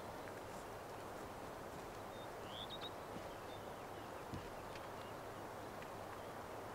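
Steady outdoor ambience: an even, low rushing noise, with one brief high bird chirp about two and a half seconds in.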